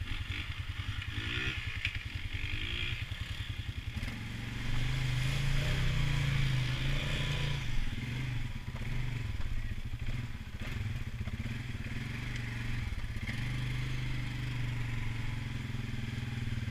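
ATV engine running at low speed, then revving up louder about four seconds in and holding a steady run after that.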